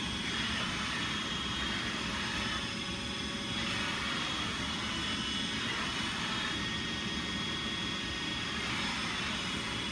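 iRobot Roomba 880 robot vacuum running: a steady whir with a thin, steady high whine.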